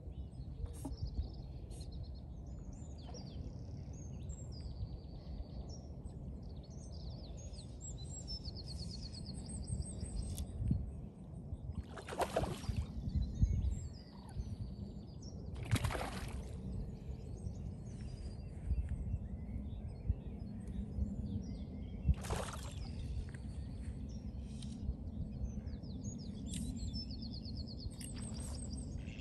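Low rumble of wind on the microphone with small birds singing, broken by three short splashes a few seconds apart in the middle stretch, from a hooked trout thrashing at the lake surface.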